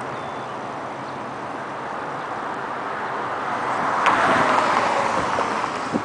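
Street traffic noise, with a vehicle passing close by: its sound swells, peaks about four seconds in with a falling pitch, then fades.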